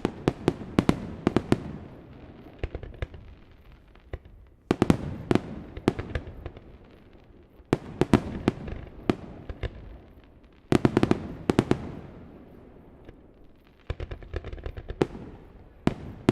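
Fireworks display: volleys of aerial shell bursts, clusters of sharp bangs and cracks coming about every three seconds, each dying away in a rolling echo.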